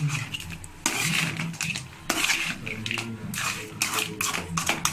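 A steel spoon scraping and clinking against a metal frying pan as crab fry is stirred, in quick irregular strokes.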